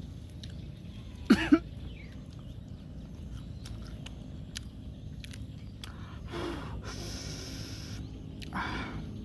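A man coughing twice in quick succession about a second in, with softer throaty sounds and breathing later on.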